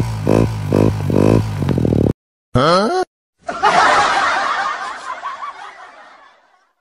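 Upbeat background music with a steady beat stops abruptly about two seconds in. After a short gap comes a brief rising sound effect, then a snickering laughter effect that fades away.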